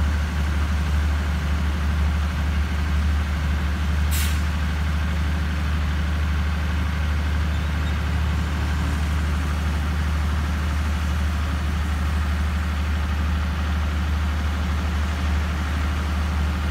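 Diesel passenger train standing at a station with its engines idling, a steady low hum. About four seconds in, a short, sharp hiss of air, typical of the air brakes.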